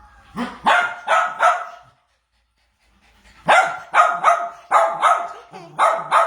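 A nervous rescued dog barking: a quick run of four barks, a pause of about a second and a half, then a longer run of about eight barks. The barking comes from a stressed, frightened dog that is being calmed.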